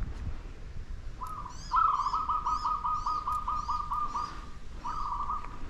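Birds calling: a short run of notes just over a second in, then a long quick series of repeated notes, about five a second, for a couple of seconds, and another short run near the end. Fainter high chirps sound above them.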